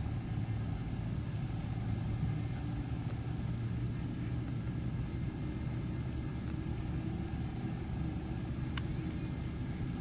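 Steady low rumble of outdoor background noise, with a faint steady high whine and a single short click about nine seconds in.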